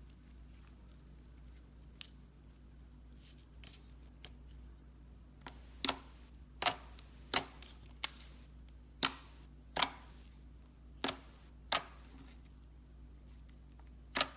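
Slime being squeezed and pressed, giving sharp popping clicks as air pockets burst. A few faint clicks come first, then about eight loud pops come one after another, roughly one every 0.7 s.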